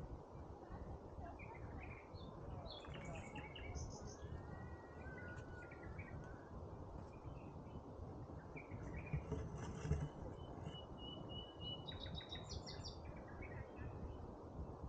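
Several birds chirping and calling in the trees in short scattered bursts, with one gliding call about five seconds in and a thin held note about eleven seconds in, over a steady low rumble and a single low bump near ten seconds.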